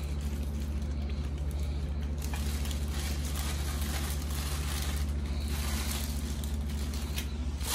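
Steady low mechanical hum, with soft crinkling of a plastic bag of fish fillets being handled on a scale.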